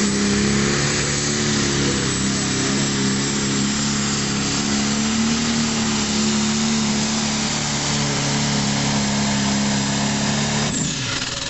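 Diesel pulling tractor's engine running at full throttle under load while it drags a weight sled, a steady deep engine note with a hard hiss above it. Near the end the throttle comes off: the engine note suddenly drops and a high whine falls away.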